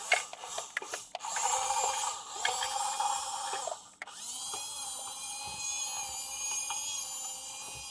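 Small electric motor and gears of an RC toy whirring with a steady whine. It stops briefly about four seconds in, then spins up again and runs steadily.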